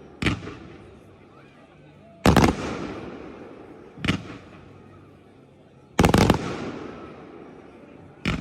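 Display fireworks going off in a steady rhythm: a sharp bang, then about two seconds later a bigger, longer burst that rings and fades away, twice over, with another sharp bang near the end.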